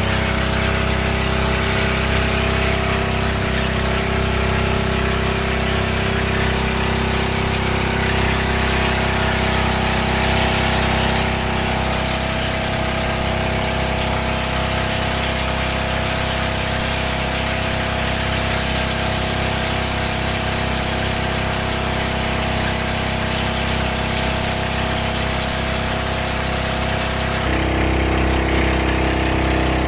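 Motor bangka's engine running at a steady drone, with wind and water hiss over it; the engine note changes about two seconds before the end.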